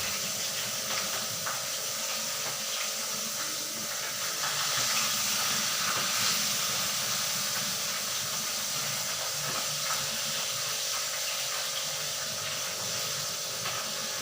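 Tilapia frying in hot oil: a steady sizzle with small crackles.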